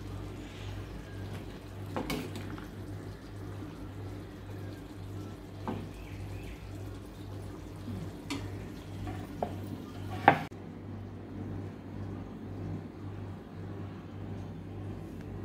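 Steel ladle clinking and scraping against a steel kadhai and plate while curry is served: a few sharp clinks spread out, the loudest about ten seconds in, over a steady low hum.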